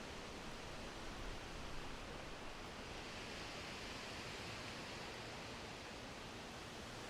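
Steady rain falling, an even hiss with no distinct drops or thunder.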